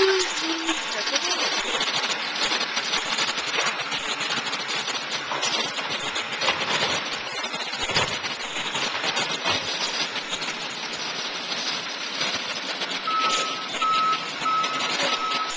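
Automated side-loader garbage truck running, its engine and lifting arm making a steady loud rush as a cart is tipped into the hopper. Near the end a backup alarm starts beeping, evenly spaced at under a second apart.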